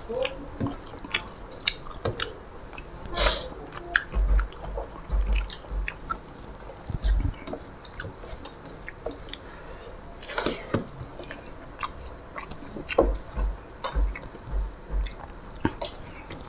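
Close-miked chewing and eating noises of people eating rice and fish curry by hand: wet lip smacks, mouth clicks and chewing, irregular and frequent.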